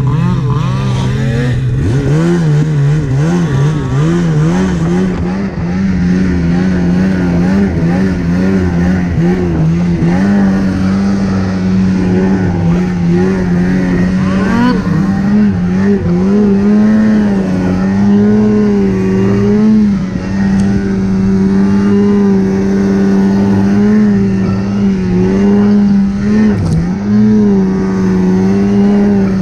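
Snowmobile engine running under throttle while riding along a trail. It climbs in pitch about two seconds in, then holds at a high steady speed that rises and falls with the throttle, easing off briefly twice near the end.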